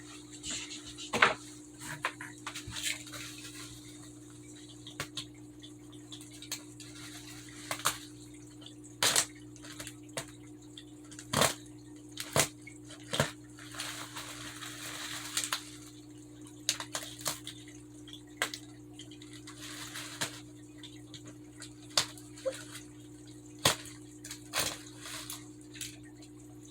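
Irregular sharp clicks, taps and brief rustling of packaging being handled and cut open with a knife, over a steady low hum.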